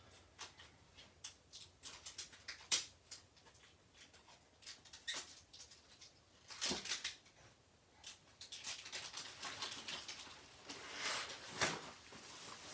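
Layers of gift wrapping torn and crinkled by hand: a run of sharp crackles and rustles, thicker in two stretches in the second half.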